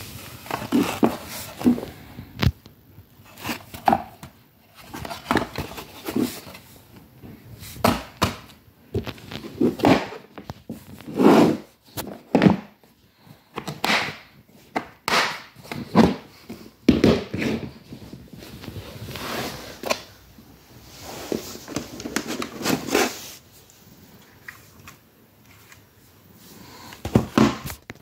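Hard plastic Roomba parts being handled: irregular knocks, clacks and rubbing as dust bins and other parts are picked up, set down and moved about on a wood-look floor.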